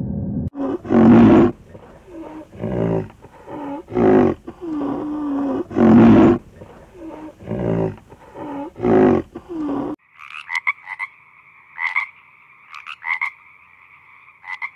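A rhinoceros giving a run of loud calls, about one a second, each with a bending pitch. About ten seconds in they stop abruptly and a frog takes over with irregular, clustered croaks.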